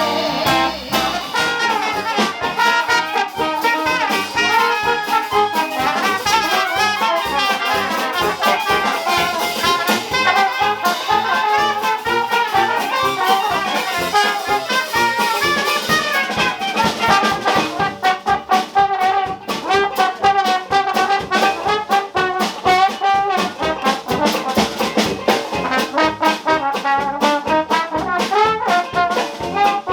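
Dixieland jazz band playing live: an instrumental chorus led by brass horns over a steady swing beat from the rhythm section.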